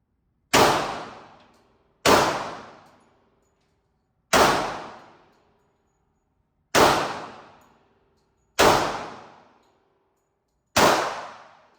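Six single gunshots from a firearm, fired one at a time about two seconds apart. Each shot is a sharp crack followed by an echoing tail that dies away over about a second.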